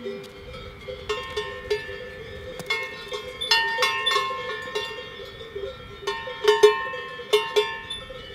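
Several cowbells clanking irregularly, each strike ringing on, with the strikes coming thicker in the middle and the loudest a little over six seconds in.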